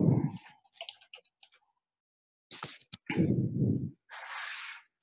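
A computer keyboard clicking as the search term "cyberchef" is typed, between short low vocal sounds, with a breathy hiss near the end.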